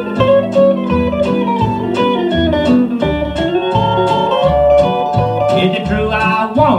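Instrumental break of a country song playing from a 45 rpm vinyl single: sustained melody lines over a steady bass beat, with a sliding note near the end.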